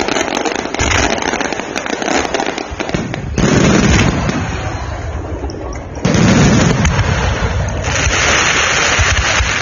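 Fireworks display at its climax: aerial shells bursting in close succession amid continuous crackling, with two heavy booms about three and a half and six seconds in.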